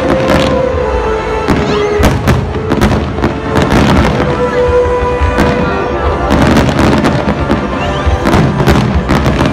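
Fireworks shells bursting and crackling in quick succession, loud, with many sharp bangs, over music playing at the same time.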